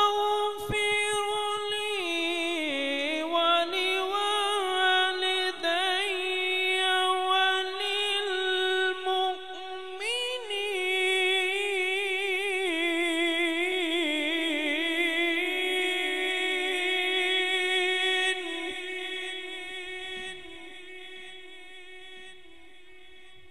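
A man reciting the Quran in melodic tajweed style, stretching one phrase into a single long breath: mostly held on one high note with wavering turns, dipping lower about two seconds in and rising again around ten seconds in. The voice fades out about eighteen seconds in.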